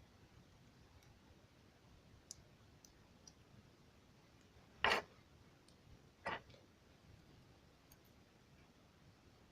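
Two sharp clicks about a second and a half apart, with a few faint ticks before them, over quiet room tone.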